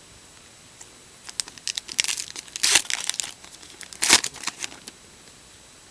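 Foil wrapper of a trading-card pack being crinkled and torn open: a run of crackling and tearing that starts about a second in, with the loudest rips near the middle and just after.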